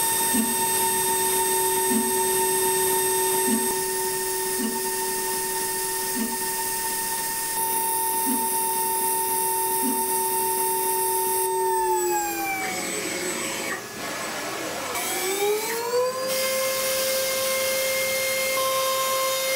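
High-frequency spindle of a DATRON M8Cube CNC mill (2.0 kW) whining steadily while drilling a grid of small holes in an aluminium panel, with a soft tick every second or two as each hole is cut. About twelve seconds in, the whine glides down almost to a stop, then about fifteen seconds in spins back up to a new, higher steady pitch.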